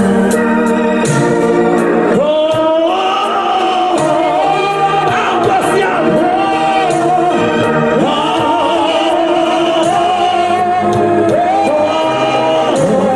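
Gospel singing over electronic organ chords, the voice holding long notes that slide between pitches from about two seconds in.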